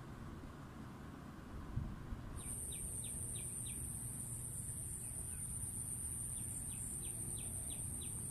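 Rural outdoor ambience over a low rumble. Two dull thumps come just before a steady high-pitched insect drone starts about two seconds in. Over the drone a bird calls twice in quick runs of short, falling chirps, about three a second.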